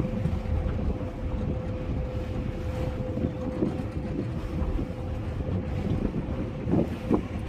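Wind buffeting the microphone over the low rumble of a moving tour boat, with a faint steady hum.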